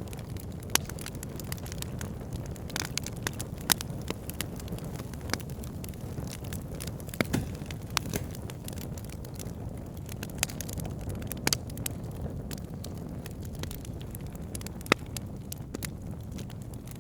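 Wood fire burning in a fireplace: a steady low rush of flames with irregular sharp crackles and pops, a few louder snaps among them.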